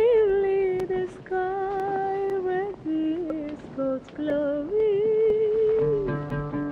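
A woman's voice singing a slow melody, holding long notes with a wavering vibrato. Plucked guitar-like notes come in near the end.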